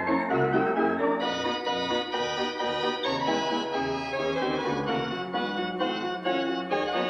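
An orchestrion, a self-playing mechanical band instrument, playing a tune with organ-like tones and sustained chords.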